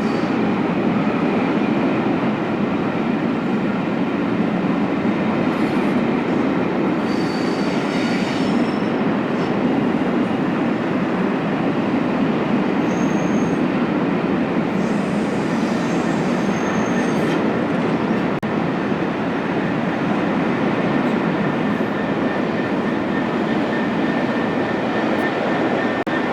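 A train running on the line, a steady rumble of wheels on rail throughout, with a few brief high-pitched wheel squeals.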